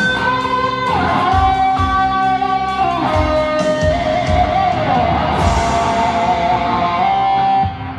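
Charvel electric guitar playing a lead solo of held notes that slide and bend between pitches, over a rock backing with bass and drums. The backing drops away near the end.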